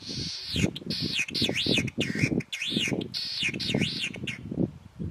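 Latham's snipe calling from a perch: its breeding-season call repeated over and over in a quick series, each note sweeping down and back up in pitch, stopping about four seconds in. Irregular low-pitched noise runs beneath.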